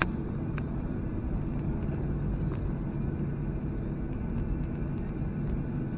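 Boeing 737-800's CFM56-7B jet engines running steadily, heard from inside the cabin as a low rumble with a held hum and a faint higher tone.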